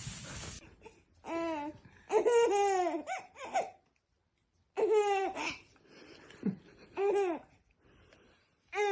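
A short burst of loud noise at the very start, then about six short, high-pitched cries, each rising and falling in pitch.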